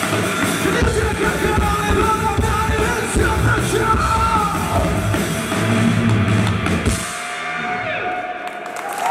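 Live rock band, with drum kit, bass and electric guitars, playing loudly. About seven seconds in the band hits its final stop, and only sustained notes are left ringing out as the song ends.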